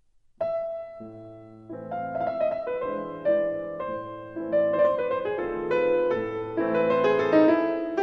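Piano music interlude, beginning about half a second in after a brief silence, with chords and a melody.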